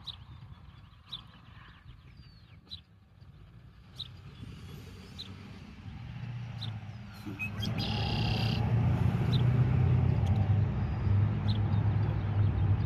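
Short, high chirps about once a second from a male red-winged blackbird. From about six seconds in, a low traffic rumble swells and becomes the loudest sound.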